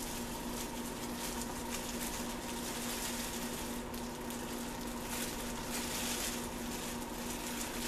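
Crumpled plastic wrap crinkling and rustling as hands press and dab it onto freshly sprayed paint on a canvas, over a steady low hum.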